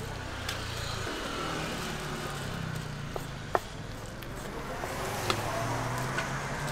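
A steady low engine hum, like an idling vehicle or passing traffic, with a few sharp clicks; the loudest click comes about three and a half seconds in.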